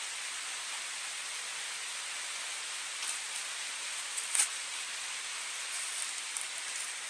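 Steady rush of river water flowing over rock. A few brief rustles and taps come in from about three seconds on, the sharpest just past four seconds.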